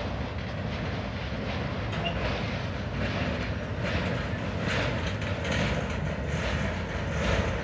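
Freight train's spine cars loaded with highway trailers rolling past: a steady rumble of steel wheels on the rails, with a repeated clatter that comes about every three-quarters of a second from about three seconds in.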